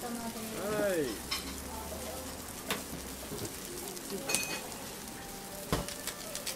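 Thin slices of meat sizzling steadily on a hot steel teppanyaki griddle, with a few sharp clicks of metal spatulas against the steel.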